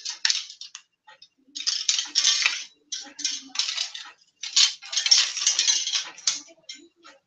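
Fishing rods and tackle being handled: irregular bursts of clattering and rustling, with short gaps between them.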